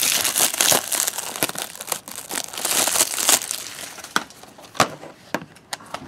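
Clear plastic shrink-wrap on a Blu-ray case being torn open and peeled off, a dense crinkling and crackling that thins to a few scattered crackles after about three and a half seconds.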